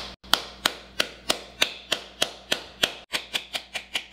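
Wooden spoon whacking the rind of a halved pomegranate held cut side down over a bowl, knocking the seeds loose. About three sharp whacks a second, then, after a short pause about three seconds in, quicker whacks.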